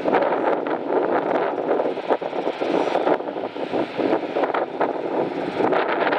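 Jet engine noise from a departing Boeing 737-8 (CFM LEAP-1B engines): a steady rushing roar peppered with crackles, with wind buffeting the microphone.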